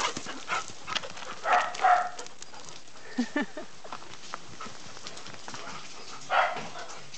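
Standard poodles at play giving a few short dog vocalisations, about a second and a half in, again near three and a half seconds and once more near the end, with scattered clicks and rustles between.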